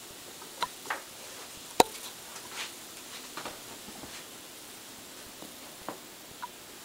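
Scattered soft thumps, scuffs and scratches of a kitten scampering about on a bed, with one sharp click a little under two seconds in.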